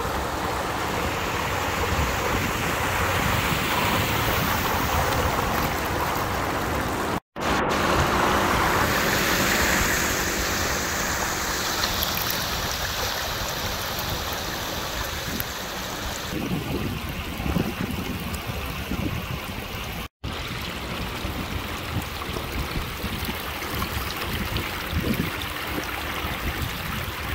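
Muddy flash-flood water rushing and churning over a road edge: a steady, loud wash of water noise. It cuts out abruptly for a split second twice.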